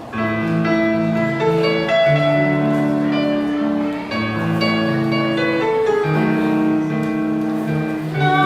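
Live pop band playing an instrumental passage with no singing: held chords that change about once a second, with a melody line over them.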